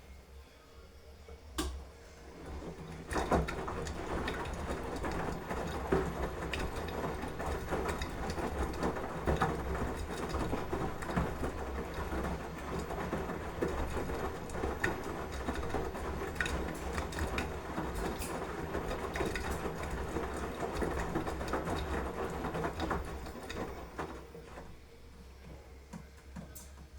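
Beko washing machine running, its drum turning with a busy clicking, rattling mechanical sound over a low hum. The sound builds up about three seconds in and dies down a few seconds before the end, as the drum stops.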